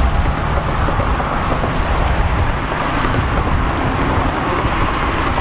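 Steady wind buffeting the microphone: a low rumble under an even rushing noise.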